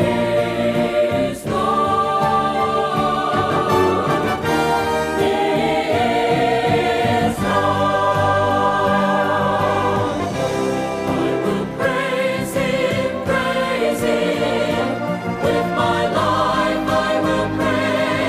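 A vocal group singing a gospel song in choral harmony over a full instrumental accompaniment.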